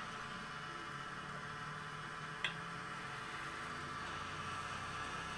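Steady low hum and hiss of a petrol pump dispensing fuel into a motorcycle tank, with one sharp click about two and a half seconds in.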